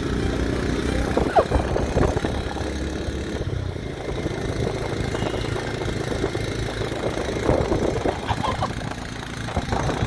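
Motorcycle engine running at road speed, its low hum mixed with a rushing of wind over the microphone.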